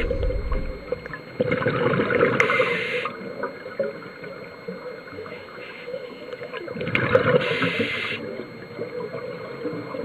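Underwater recording of a diver's exhaled air bubbles rushing and gurgling past the camera housing, twice, about five seconds apart, with a quieter wash of water between breaths.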